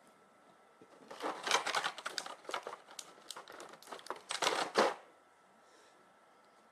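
Hands handling small action-figure armour parts: a quick run of light clicks, rattles and crinkling rustles that stops about five seconds in.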